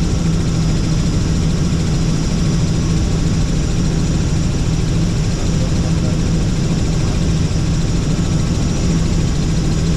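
Helicopter in flight heard from inside the cabin: the rotor and engine make a loud, steady drone with a constant low hum.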